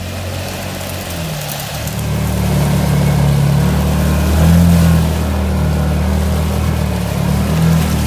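Can-Am Defender side-by-side's engine running under load while wading through a pond, its pitch rising and falling with the throttle, over the rush of water churning against the body. It gets louder about two seconds in.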